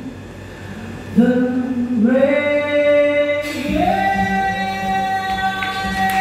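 Live band ending a song: voices hold long notes over piano, stepping up to a higher sustained final note about four seconds in.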